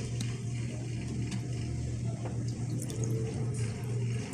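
Water running into a bowl of cut fruit, filling it, over a steady low hum.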